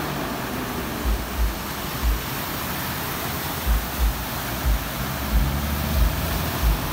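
Vehicles driving through a flooded road, their tyres throwing up spray: a steady rushing, with irregular low thumps.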